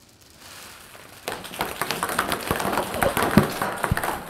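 A shower of ping pong balls landing and bouncing, a dense clatter of quick light clicks that starts about a second in.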